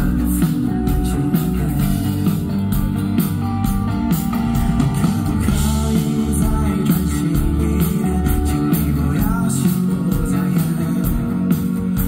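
A live band playing through a PA, heard from the crowd: a lead vocalist singing over electric guitar and a steady beat.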